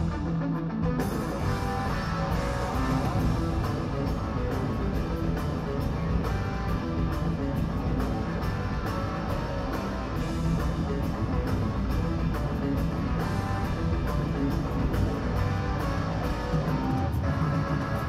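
Rock band playing live through an arena PA: electric guitar over a full drum kit.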